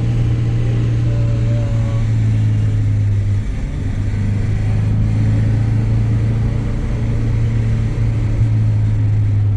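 A motor vehicle running with a steady low drone, easing slightly about three and a half seconds in.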